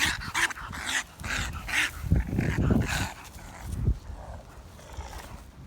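Baby raccoon making a quick run of short, harsh calls over the first three seconds, with a few low thumps in between.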